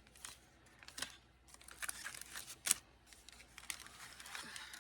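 Pokémon trading cards and their packaging being handled: scattered light clicks and taps with some crinkling. The sharpest click comes a little past halfway.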